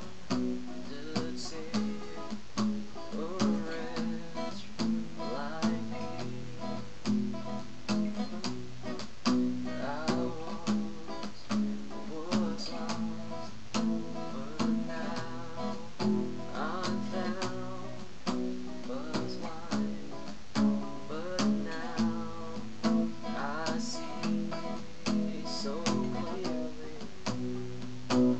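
Acoustic guitar strummed in a steady rhythm, chords ringing under each stroke, picked up by a webcam microphone with some static.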